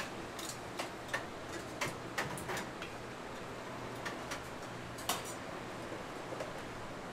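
A few scattered light clinks and taps of a metal ladle against a steel soup pot and a ceramic bowl, most in the first couple of seconds and one more about five seconds in, over a steady low hum.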